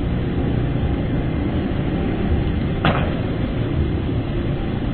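Steady background noise and hiss of the lecture recording, strongest in the low range, with one brief click about three seconds in.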